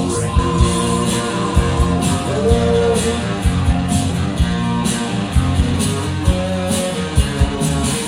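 Music with a steady beat and guitar, playing loud through the sound system.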